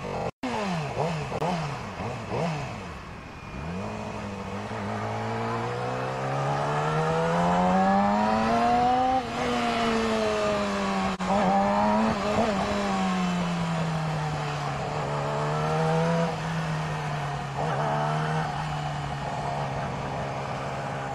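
Yamaha R6 inline-four sport bike engine heard from the rider's position. It gives a few quick throttle blips, then revs up steadily under acceleration and drops sharply in pitch about nine seconds in, then runs on with its revs slowly falling.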